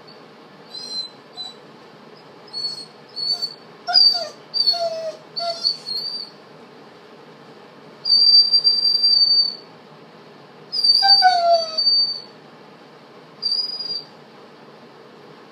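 Dog whining in high-pitched cries: a string of short whines, then two long drawn-out whines about 8 and 11 seconds in, and a short one near the end.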